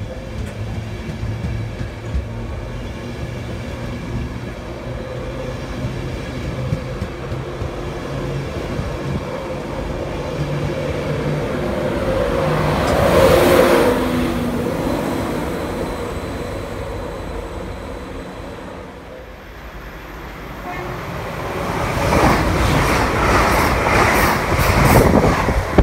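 An electric InterCity 225 train of Mk4 coaches moving past along the platform: a steady low hum and wheel rumble that swells about halfway through, eases, then comes back loud as a broad rushing noise in the last few seconds.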